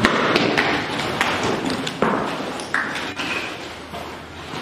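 Children scuffling and falling on a hard floor: a string of sharp knocks and thumps with rustling in between.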